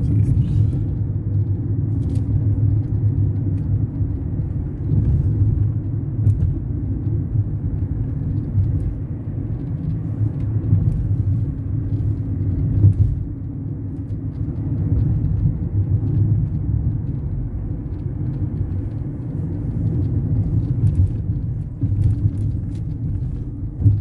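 Steady low road and engine rumble of a car driving, heard from inside the cabin.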